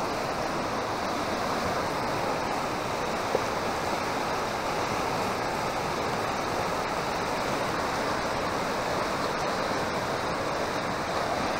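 A river in flood rushing past at a steady, unbroken level, its waves and whitewater churning, with rocks being washed down its bed.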